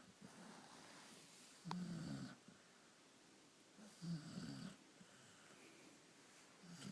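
A sleeper snoring: low snores about every two to three seconds, two full ones with a third starting near the end.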